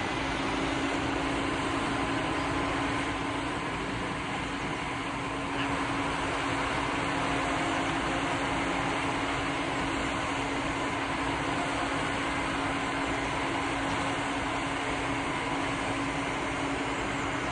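Fire engine running steadily at the scene, a constant mechanical hum, with the hiss of a firehose spraying foam and water onto a burnt-out car.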